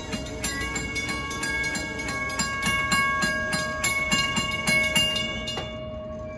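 Railroad crossing bell ringing in rapid, regular strokes while the crossing gate arm lowers for an approaching train. The bell stops suddenly about five and a half seconds in, once the gate is down, leaving a low rumble.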